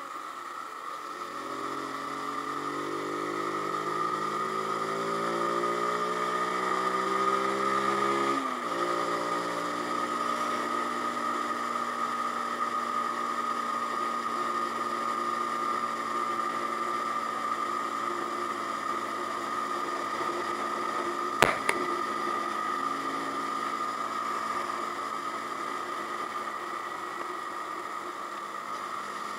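Zontes G1X 125 motorcycle's single-cylinder engine pulling in gear, its pitch rising for about seven seconds, then dropping suddenly at an upshift and running steadily at cruising speed. A single sharp click comes about two-thirds of the way through.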